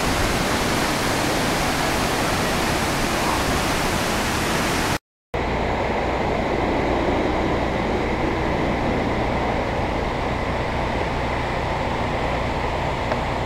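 Multnomah Falls' water plunging and splashing: a steady rushing noise. A brief dropout to silence comes about five seconds in, after which the rush sounds duller, with less hiss.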